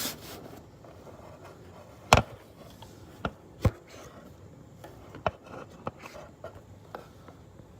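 Phone handling noise: a handful of sharp, irregular knocks and taps as the phone is worked into a tight gap beside a water heater. The loudest knock comes about two seconds in, with faint rubbing between the knocks.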